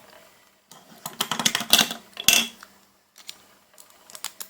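Small plastic toys being handled, clicking and clattering against each other, busiest about a second in and thinning to a few light clicks near the end.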